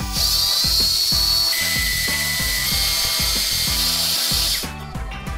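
Cordless drill running steadily with a high whine for about four and a half seconds, then stopping. It is spinning the oil pump shaft counterclockwise through the distributor hole to prime the oil pump of a 331 stroker small-block Ford. Background music plays underneath.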